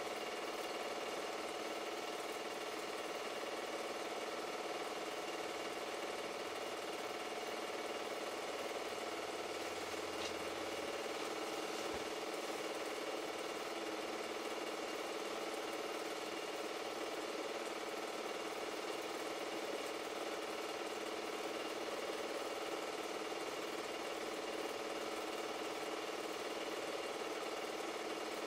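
Super 8 film projector running steadily, its motor and film transport making an even mechanical hum.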